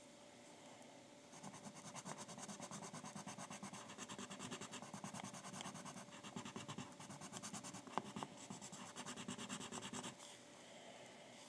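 Pencil scratching on paper in quick, rhythmic back-and-forth strokes, about seven a second. It starts a second or so in and stops about ten seconds in, with a single sharp tick near eight seconds.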